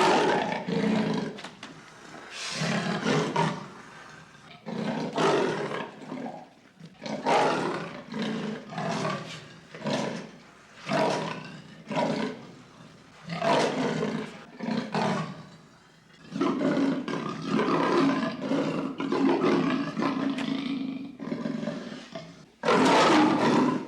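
Lion roaring: a string of separate deep calls, one every second or two, then a longer unbroken stretch of calling about two-thirds of the way through and a loud roar starting just before the end.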